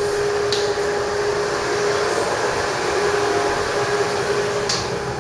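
Steady mechanical hum with one continuous droning tone running through it, with two faint ticks, one about half a second in and one near the end.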